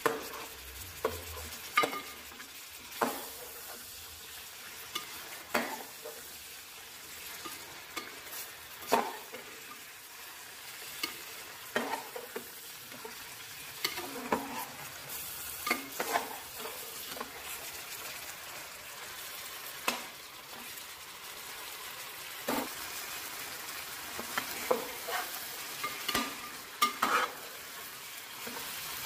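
Mutton pieces and ginger-garlic paste frying in oil with a steady sizzle, while a slotted metal spoon stirs them, scraping and clinking against the metal pot every second or two.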